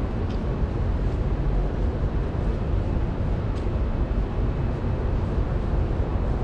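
Steady low rumbling outdoor background noise, with a few faint clicks.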